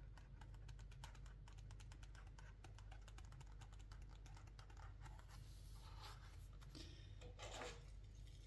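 Faint crackling of a loose sheet of sketchbook paper held up and shifted in the hand: a dense run of tiny clicks, then two soft rustles, about six seconds in and near the end.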